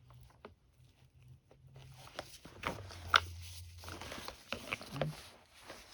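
Scattered plastic clicks and scrapes of screwdrivers prying at the snap-in clips of an Oreck XL9100 upright vacuum's plastic housing, with one sharp click about three seconds in.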